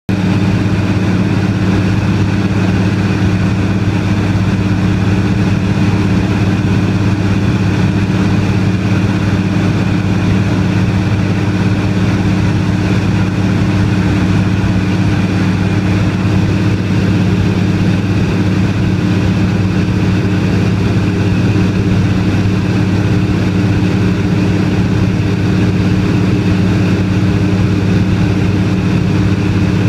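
A De Havilland Canada DHC-2 Beaver floatplane's piston engine and propeller running steadily in cruise flight, heard from inside the cabin. The low, even drone is loud and does not change, over a wash of air noise.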